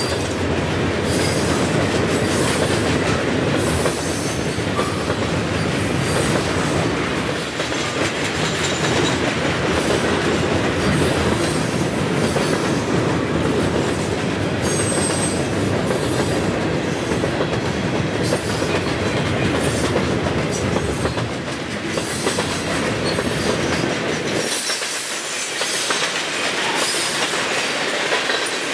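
Freight train of steel gondola cars rolling past close by, a continuous rumble with the wheels clacking over the rail joints. The deep part of the rumble drops away suddenly near the end.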